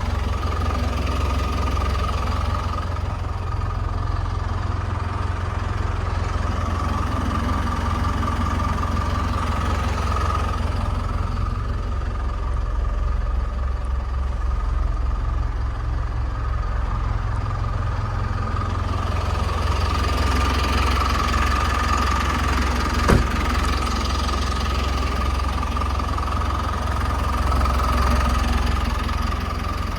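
Hyundai HD78 truck's diesel engine idling steadily, with a constant high whine over the engine's low rumble. A single sharp click about 23 seconds in.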